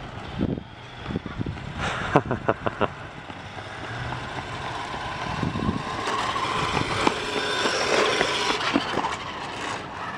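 Small electric motor and plastic wheels of a toy remote control pickup truck driving on pavement. The sound builds about halfway through and eases off near the end as the truck slows to a stop. A few short sharp sounds come around two seconds in.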